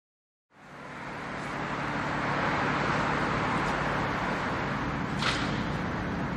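Street ambience with steady traffic noise, fading in from silence about half a second in; a brief brighter swish about five seconds in.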